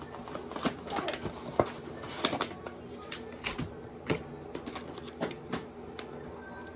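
Plastic food packaging crinkling and clicking in irregular sharp bursts as it is handled and opened, over a steady faint hum.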